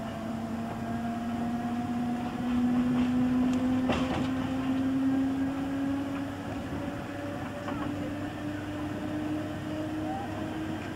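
Slam-door electric multiple unit heard from inside the carriage, its traction motor whine rising slowly in pitch as the train gathers speed over a steady bed of running noise. A single sharp knock about four seconds in.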